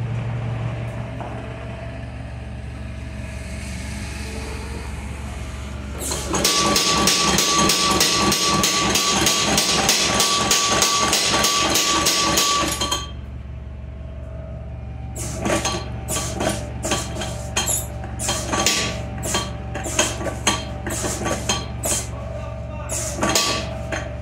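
Homemade motor-driven mini power hammer: a steady electric-motor hum, then the ram striking rapidly and evenly, several blows a second with a metallic ring, for about six seconds. After that the hammering stops, and later come a series of irregular single metallic strikes.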